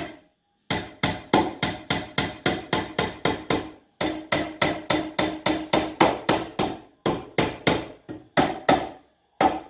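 Rubber mallet striking a cast aluminum table base, knocking its bottom piece into place. The blows come fast, about four a second, in runs with short pauses, and end in a few single blows.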